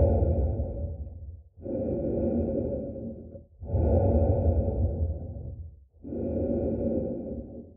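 Muffled breathing sound effect: slow, heavy breaths in a steady cycle, each swell about two seconds long with brief pauses between, about four in all, with a deep low rumble under each breath.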